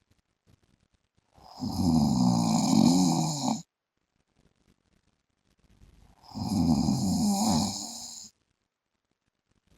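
A man snoring in his sleep: two long snores, each about two seconds, starting about five seconds apart with near silence between. The pitch wavers through each snore.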